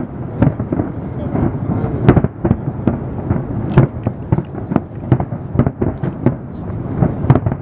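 Fireworks display: aerial shells bursting in an irregular run of sharp bangs, two or three a second, over a continuous low rumble.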